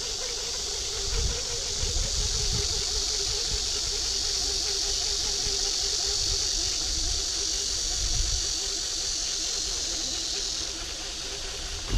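Baitcasting reel being cranked to wind the line back in: a steady whirr from the reel's gears. A steady high hiss lies over it and cuts off shortly before the end.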